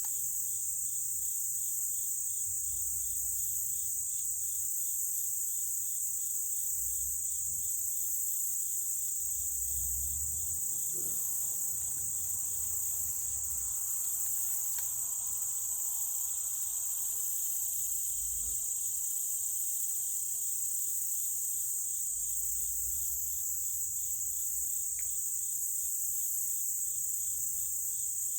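Chorus of summer insects: a steady high-pitched buzz with an evenly pulsing chirp beneath it, typical of crickets and katydids.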